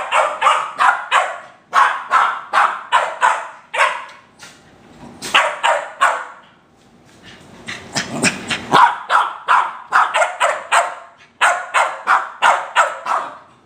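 West Highland white terrier barking in rapid, excited strings of short, sharp barks with brief pauses between runs: playful barking from a play-bow.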